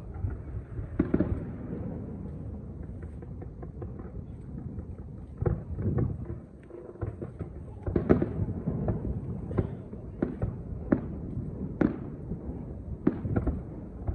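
Aerial fireworks shells bursting at a distance: a continuous low rumble with irregular sharp bangs and crackling, and several louder reports spaced a few seconds apart.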